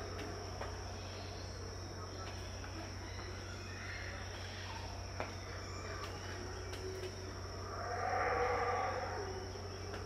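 Yucatán black howler monkeys calling, with a low, drawn-out swell of roaring about eight seconds in and a fainter one near the middle. A steady high-pitched insect drone runs underneath.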